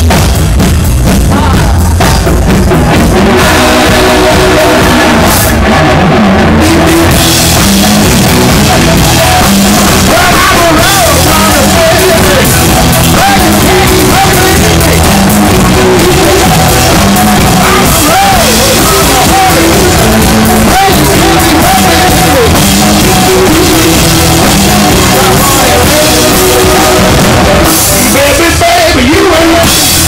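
Live blues-rock band playing loudly: hollow-body electric guitar, electric bass and drum kit, heard through a cell phone's microphone close to the stage.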